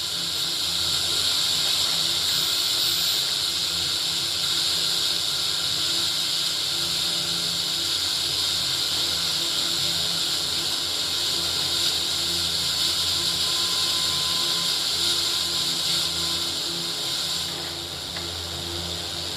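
Old Philips RR286 radio-recorder tuned off-station, giving a steady hiss of FM static with a low hum underneath: no station is being received. The hiss thins slightly near the end.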